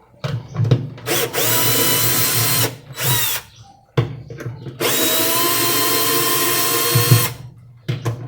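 Cordless impact driver spinning in several bursts of a steady whine, each speeding up as the trigger is pulled and then stopping sharply, as it backs out the screws holding a washing machine's wash basket.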